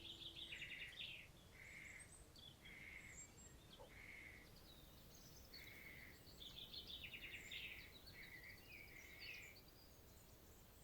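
Faint songbirds singing in a forest: one bird repeats a short whistled note roughly every second, while others break in with rapid trills twice and scattered high chirps, over a soft steady hiss.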